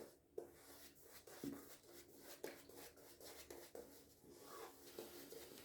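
Shaving brush with a 26 mm timberwolf knot scrubbing soap lather on a stubbled face: faint, irregular swishing strokes.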